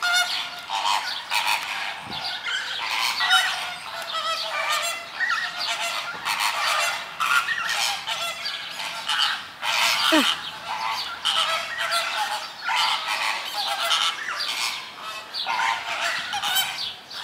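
A large, excited flock of greater flamingos calling without pause, many honking calls overlapping into a steady clamour.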